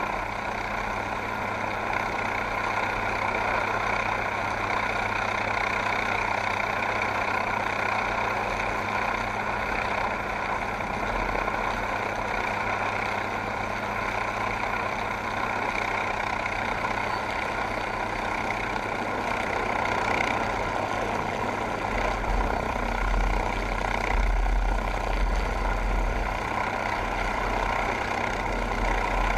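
MQ-8B Fire Scout unmanned helicopter's turboshaft engine and rotors running steadily, with a heavier low rumble for a few seconds about two-thirds of the way through.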